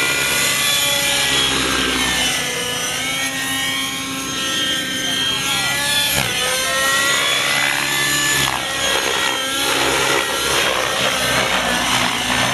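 Radio-controlled model helicopter flying aerobatics. Its motor and rotor whine rises and falls in pitch as it climbs, dives and turns.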